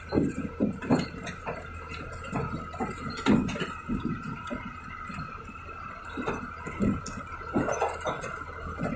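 Empty truck running in a low gear up a rough dirt road, its engine a steady low hum under a steady high whine, with irregular knocks, clinks and rattles as the cab jolts over the ruts.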